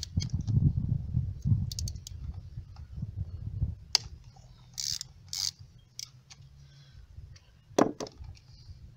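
Screwdriver backing out the lower drain screw of a Mariner 30 HP outboard's gearcase: scattered sharp metal clicks and scrapes of the tool on the screw, with a low rumble in the first few seconds and a louder knock near the end.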